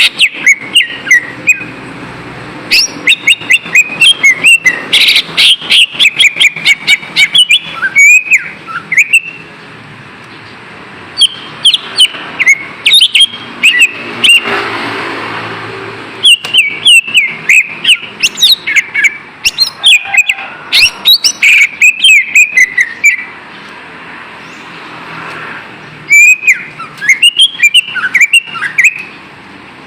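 Green leafbird (cucak ijo) singing: quick runs of sharp chirps and whistled glides in phrases, with short pauses about ten seconds in and again near the end, over a steady background hiss.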